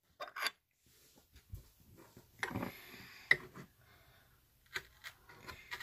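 Quiet handling noise: scattered small clicks, knocks and creaks, with a couple of louder knocks near the middle.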